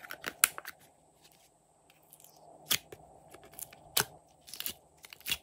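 Clear plastic multi-compartment slime container handled and its lid opened: a string of sharp plastic clicks and crackles, with the loudest about half a second in, near three seconds, at four seconds and near the end.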